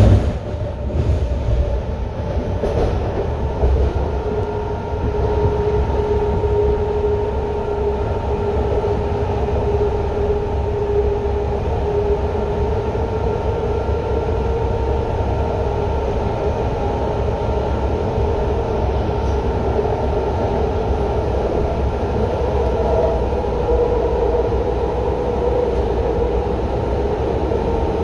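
Steady running noise inside a moving passenger train: a low rumble of wheels on rails, with a steady whine running through it.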